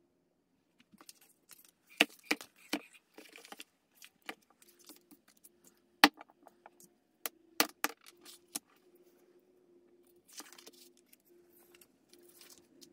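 Sharp taps and knocks of small objects and a paper journal being set down and handled on a tabletop, the loudest about two, six and seven and a half seconds in, then paper rustling as pages are turned near the end.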